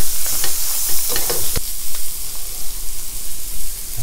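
Canned corned beef sizzling as it fries in oil in a stainless steel pan, with a spatula scraping and stirring it. The scrapes stop with a sharp knock about a second and a half in, and the sizzling goes on.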